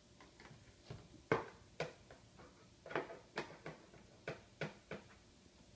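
A child's plastic toy kitchen: toy utensils and cookware tapping and clacking on the play grill, about a dozen light, irregular clicks and knocks.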